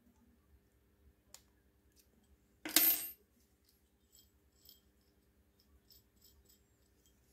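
A small metal piece dropped onto the stone worktop about two and a half seconds in, landing with a short metallic clatter and ring. Faint clicks of small metal parts being handled come before and after.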